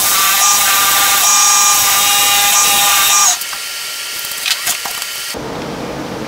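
Wood lathe spinning a wood-and-acrylic-resin vase blank while a turning tool cuts away its soft, under-cured resin top: a loud cutting hiss with a steady whine under it. It cuts off a little past three seconds in, followed by a few light knocks of handling.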